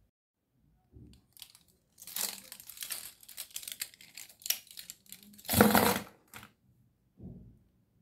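Silicone fidget toys being picked up and shuffled against each other by hand: a run of scratchy rubbing and rustling, loudest a little past halfway, with a soft knock near the end.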